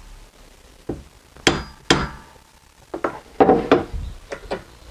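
Hammer blows on a wooden block held against a brass sheet clamped in a bench vise: about eight sharp, uneven knocks, coming closer together in the second half. The brass edge is being hammered down over the vise jaw to take the rounded roll out of its bend.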